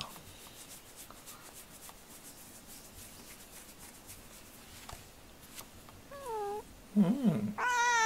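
Domestic cat meowing twice near the end: a short falling meow, then a longer drawn-out meow. Before that there is only faint rustling.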